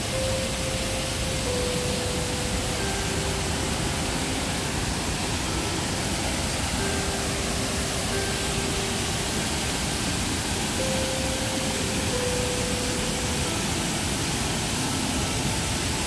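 Waterfall pouring, a steady, loud rush of water, with a slow melody of held notes playing softly over it.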